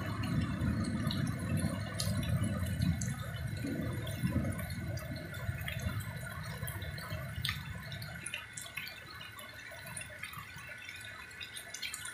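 Heavy rain falling, with scattered drips and splashes of water running off a roof edge. A low rumble fades out over the first half.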